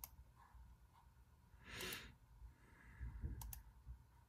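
Near silence: room tone with a few faint clicks and a soft breath about two seconds in.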